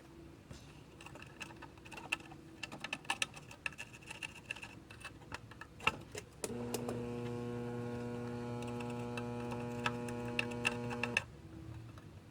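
Small irregular clicks and taps of tools working on a circuit board during soldering of cracked joints. About halfway through, a steady electric hum switches on, runs for about five seconds, and cuts off.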